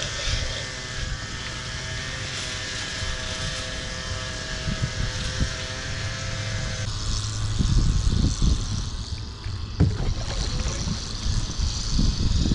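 A steady motor hum made of several even tones, which cuts off suddenly about seven seconds in. Wind rumbling on the microphone and a few sharp knocks follow it.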